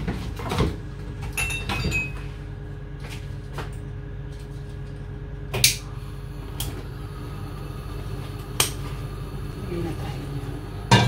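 A few sharp clicks as a gas-stove burner is lit with a hand-held lighter, then a steel pot knocks down onto the burner grate near the end, over a steady low hum.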